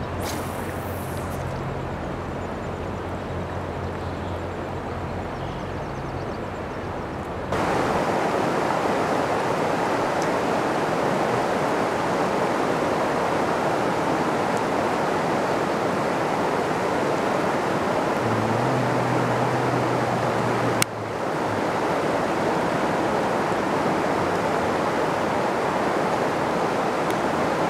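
Steady rushing outdoor noise of wind and flowing river water, stepping up in level about seven seconds in. There is a single sharp click about 21 seconds in.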